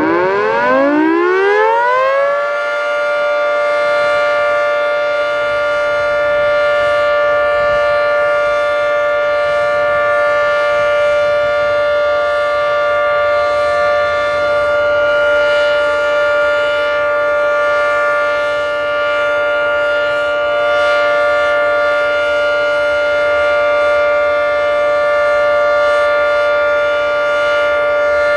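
Federal Signal 3T22 outdoor warning siren winding up, its pitch rising for about two and a half seconds, then holding a steady, loud multi-tone chord on the Alert signal.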